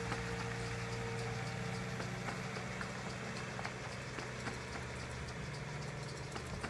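Diesel engine of a Mercedes-Benz Sprinter-based motorhome running steadily, with scattered light clicks; the engine sound drops away at the very end.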